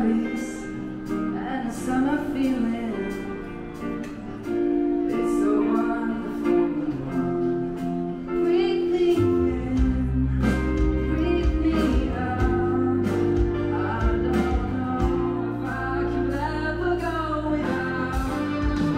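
A man singing into a microphone over an instrumental backing, with a pop-style vocal performance. A deep bass part comes in about halfway through.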